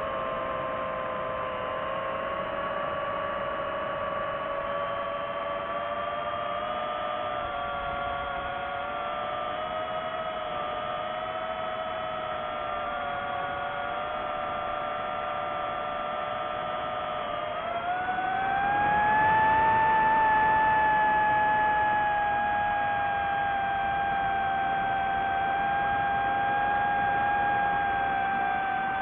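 DJI FPV drone's motors and Gemfan Hurricane 5236 propellers whining in flight, the pitch shifting slightly with throttle. About 18 seconds in the whine climbs sharply in pitch and gets louder as the throttle is pushed up, then slowly drops back.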